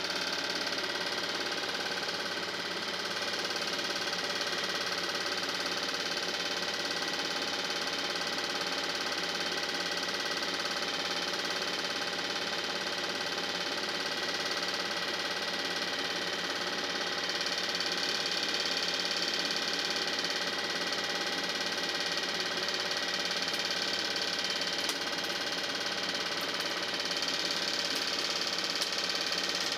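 Film projector running: a steady mechanical hum with several held tones and an even mechanism noise that does not change across the picture cuts.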